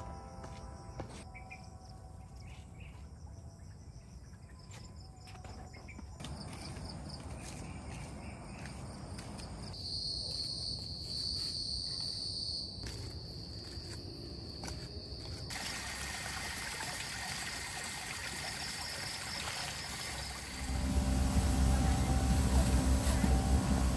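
Insects keep up a steady high-pitched drone at dusk, loudest about halfway through. Near the end a much louder low rumble of traffic and voices takes over.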